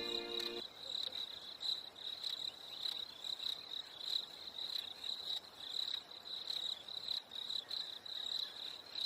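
Crickets chirping steadily in an even, high-pitched pulse, a little under two chirps a second. A few bars of music end about half a second in.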